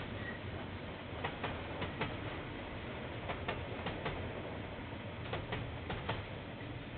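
Railway wagon wheels clicking over rail joints as a train passes. The clicks come in quick pairs, about six double clicks, over a steady low rumble.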